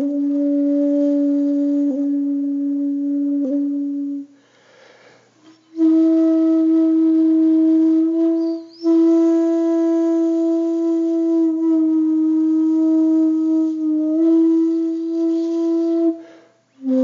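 Background music: a solo flute playing slow, long held low notes that step slightly in pitch, with a pause for breath about four seconds in.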